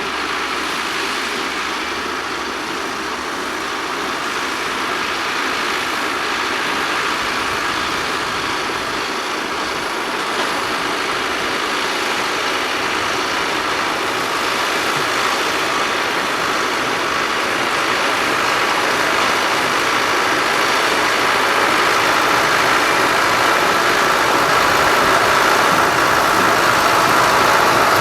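Ford 7700 tractor's engine running steadily while pulling a Claas conventional square baler through a field, with the baler's machinery working, growing gradually louder toward the end.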